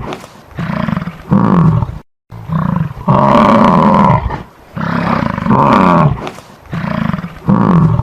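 A large wild animal roaring in a run of loud calls, each about a second long with sliding pitch, broken by a brief silent gap about two seconds in.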